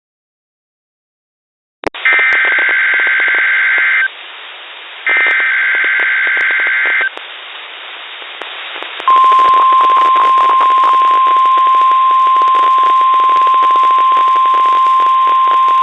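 NOAA Weather Radio EAS test received through radio static: after nearly two seconds of silence the hiss comes in, then two roughly two-second bursts of warbling SAME digital header data. About nine seconds in, the steady single-pitched 1050 Hz warning alarm tone starts and holds.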